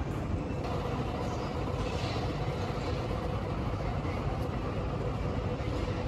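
City street ambience: a steady low rumble of traffic, with no single event standing out.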